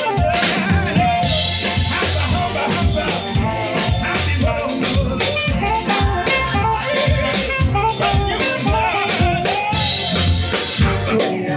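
Live African-pop band playing an upbeat song, a drum kit keeping a steady beat under melodic instruments.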